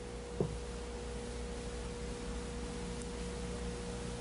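Steady background hum of an old film soundtrack: a single unchanging mid-pitched tone over a low hum, with one short pop about half a second in.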